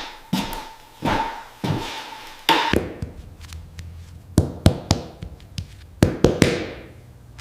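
A quick run of sharp taps and knocks, roughly two a second at first, each with a short swishing tail, then sparser clicks with a few louder knocks in the second half.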